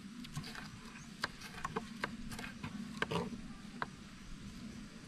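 Kitchen knives chopping vegetables on thick wooden chopping blocks: irregular sharp knocks of the blades striking the wood, about two a second, over a low steady hum.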